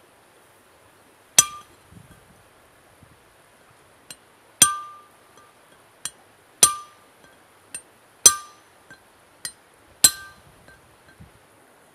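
Hammer blows on steel in hand forging: five sharp, ringing metal strikes, most a couple of seconds apart. Four of them are preceded by a lighter tap.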